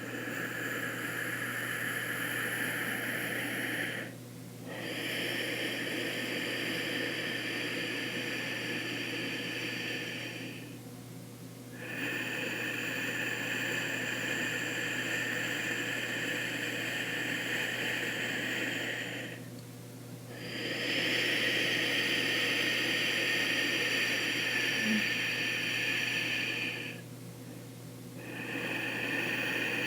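Ujjayi breathing: slow, drawn-out breaths through a narrowed throat, making a steady hiss. Each breath lasts six to eight seconds, with short pauses between them, over a low steady hum.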